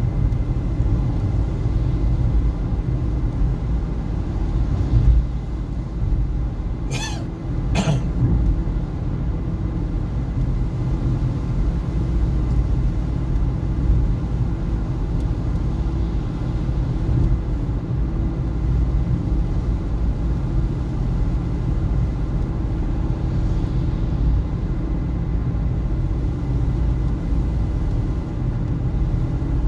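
Steady low road-and-engine rumble heard inside the cabin of a moving car, with two brief sharp clicks about seven and eight seconds in.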